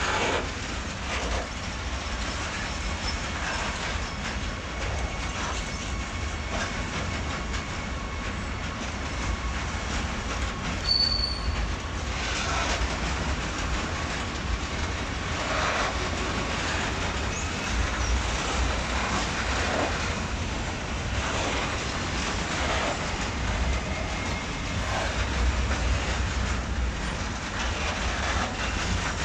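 Freight train of covered grain hopper wagons rolling past, with a steady rumble and irregular knocks as the wheels cross rail joints. A brief high wheel squeal comes about eleven seconds in.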